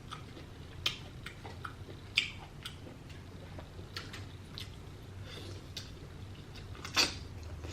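Close-miked chewing and wet mouth sounds of someone eating seafood, with irregular sharp clicks and smacks, the loudest about two seconds in and near the end.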